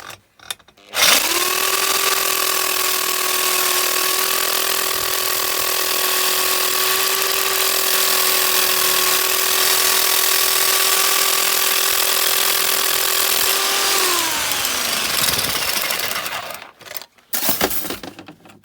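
Reciprocating saw (sawzall) running steadily for about thirteen seconds against a sheared bolt, then dropping in pitch and winding down, followed by a few knocks. The finer blade is not a metal-cutting blade.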